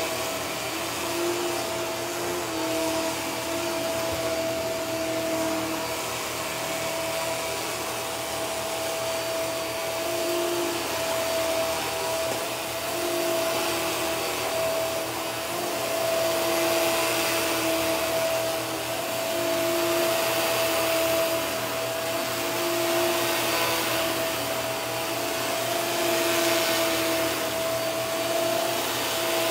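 Upright vacuum cleaner running on carpet: a steady motor whine holding one pitch over the rush of suction, swelling and fading a little as it is pushed back and forth.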